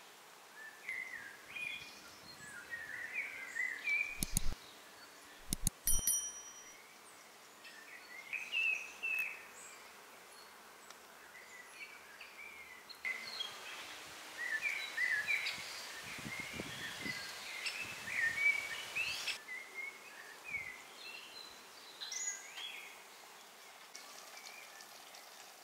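Birds chirping and calling in short bursts, with a few sharp clicks about four to six seconds in.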